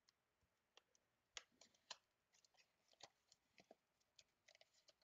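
Faint crackling and ticking of a cardboard trading-card box being torn open by hand, with its foil-wrapped pack crinkling. There are two sharper snaps about a second and a half and two seconds in, then a quick run of crackles near the end.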